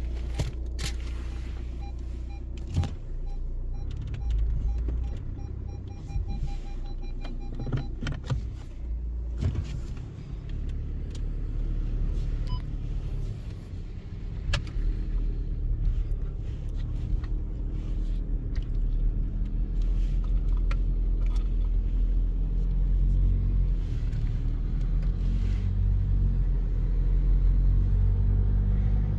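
Volkswagen Passat B7 driving, with a steady low engine and road rumble and scattered clicks and knocks. In the first several seconds there is a run of short beeps that come closer together. Near the end the engine pitch rises as the car speeds up.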